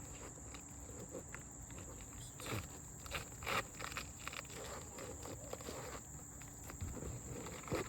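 Scattered short scrapes, taps and rustles of roofing hand tools on asphalt 3-tab shingles as a stuck roofing nail is worked loose, over a steady high whine.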